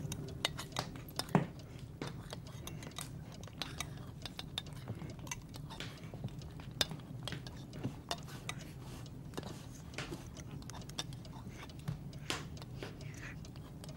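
Metal spoons clinking and scraping against bowls as several children eat, in many small irregular clicks over a low steady hum.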